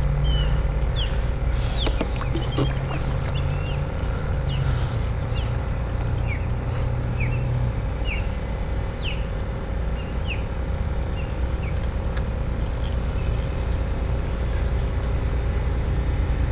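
Many short, falling bird chirps over a steady low rumble, with a few faint clicks; the chirps thin out about two-thirds of the way through.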